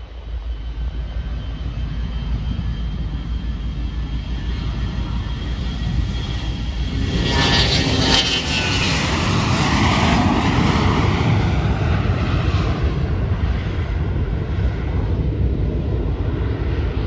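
Business jet's turbofan engines passing by: a steady rumble with a thin high whine swells to a loud rushing peak about halfway through, then eases off.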